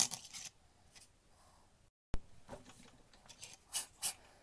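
Small sharp clicks and taps of a brass pocket watch movement and small tools being handled on a bench: a loud click at the start, a brief dead gap about two seconds in, then several separate sharp ticks towards the end.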